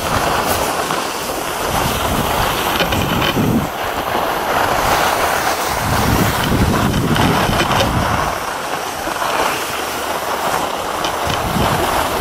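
Wind buffeting the microphone while skiing downhill, in low gusts that come and go every few seconds, over a steady hiss of skis sliding on packed snow.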